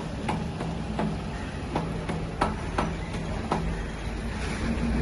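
Single-cylinder 10 kVA Bajaj diesel generator set being started with its hand crank: a low, steady engine hum with about half a dozen sharp clicks at uneven intervals. The hum grows louder near the end.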